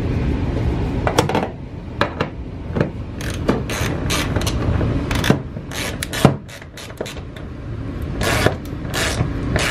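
Metal clicks and clinks of a socket fitted onto a nut and a ratchet wrench tightening it on a roof-rail bolt from inside a van, the clicks coming in irregular spurts, over a low steady hum.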